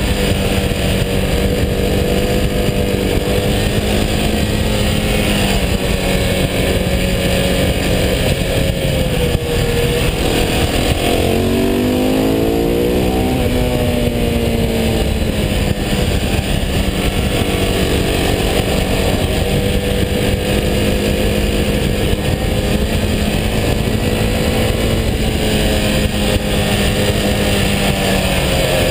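KTM 690 SMC's single-cylinder four-stroke engine running steadily under way on a twisty road, its pitch dipping and then climbing briefly about eleven seconds in. Steady wind rush on the bike-mounted camera.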